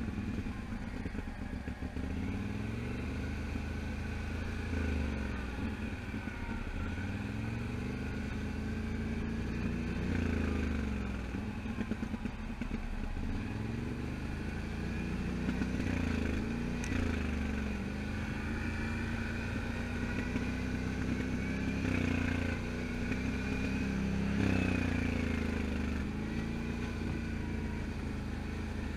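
Can-Am Outlander 1000 XT-P ATV's V-twin engine running on the move, its pitch rising and falling again and again as the throttle is opened and eased.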